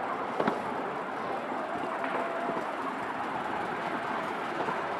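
Slow park ride train running along, a steady rolling rumble with a sharp click about half a second in.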